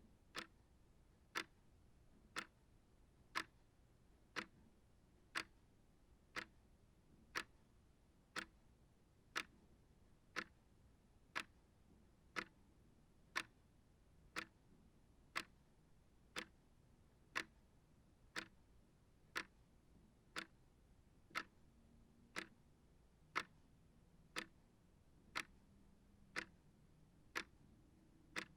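Small shelf clock ticking steadily, quiet sharp ticks at about one a second.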